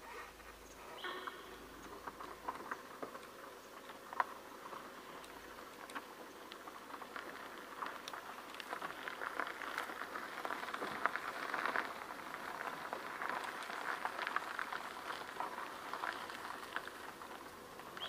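Irregular crackling and rustling of dry leaf litter and twigs, growing busier in the second half.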